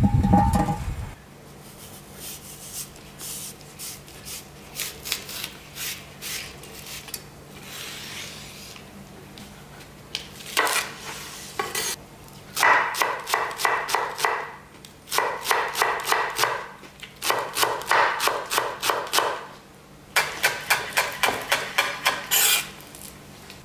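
A heavy iron cauldron lid scrapes into place at the start. Then a chef's knife cuts green onions on a wooden cutting board: a few light cuts, then from about halfway through, five quick runs of rapid chopping strokes with short pauses between them.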